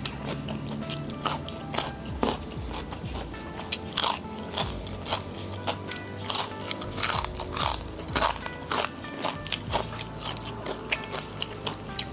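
Close crunching and chewing as crisp cassava crackers (kerupuk singkong) are bitten and eaten, a run of sharp crunches at uneven intervals. Background music plays underneath.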